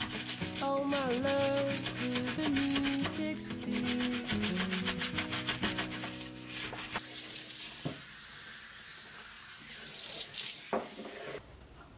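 IKEA RINNIG dish brush scrubbing a stainless-steel sink in rapid back-and-forth strokes while the tap runs. About halfway through, the strokes give way to a steady rush of water, which cuts off abruptly near the end.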